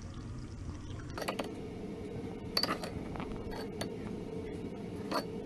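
A metal spoon clinking against a ceramic coffee cup and a small jar, in a few short separate clinks. A steady low hum comes in about a second in.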